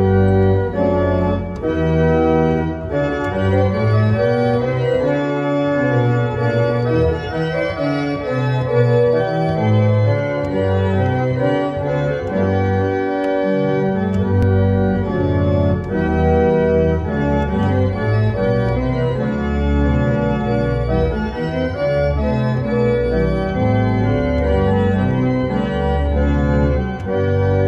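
1890 Roques pipe organ playing sustained chords over a moving bass line.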